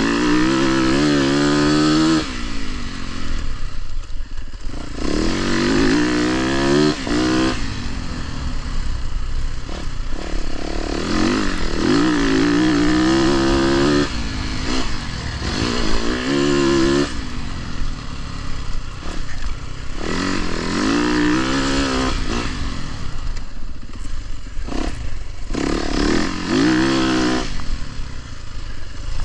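Dirt bike engine being ridden hard, revving up and easing off again and again, about seven times, the pitch climbing with each burst of throttle and dropping between them.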